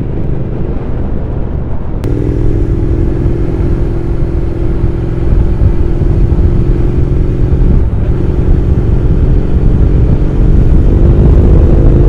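Triumph parallel-twin motorcycle engine running at a steady cruising speed while riding, heard through heavy wind rush on the microphone. The engine note holds level, with a brief break about eight seconds in before it settles again.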